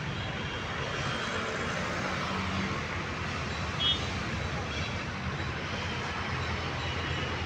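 Steady street traffic noise, with a brief high-pitched tone about four seconds in.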